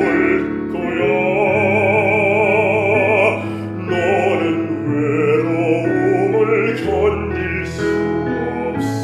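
A man singing in a trained, operatic-style voice with wide vibrato over accompaniment of held low chords. He draws a breath between phrases about three and a half seconds in and again near the end.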